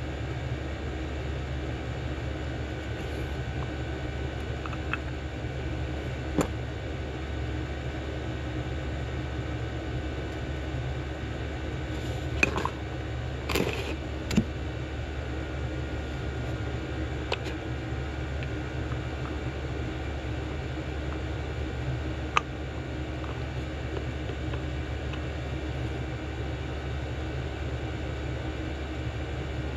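Steady low hum of background noise, with about six light clicks and taps of small carburetor parts being handled, the loudest bunched together about halfway through.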